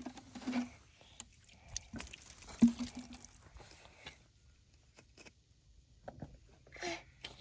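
A toddler whimpering in short cries while an adult's wet hands rub water over his face, with light splashing and patting of hands on skin. The loudest moment is a sharp smack about two and a half seconds in.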